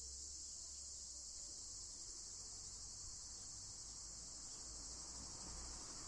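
Faint outdoor ambience dominated by a steady, high-pitched insect chorus, with a faint low hum underneath.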